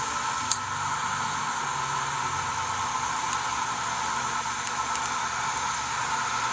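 A steady rushing noise, with a few faint short clicks about half a second in and again near five seconds.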